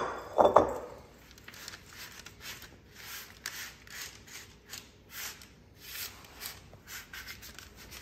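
Spatula scraping and pushing granola mixture across parchment paper on a baking tray, a run of short rustling strokes about two a second. Two loud knocks in the first half second, the spatula against the glass mixing bowl.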